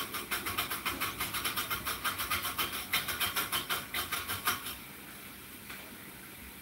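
Hand-cranked Saladmaster food processor slicing celery: the cone blade shaves the stalk in a fast, even rasping rhythm, which stops about three-quarters of the way through, leaving a faint hiss.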